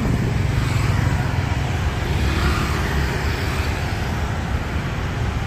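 Steady road traffic noise on a city street, a continuous low rumble of passing vehicles.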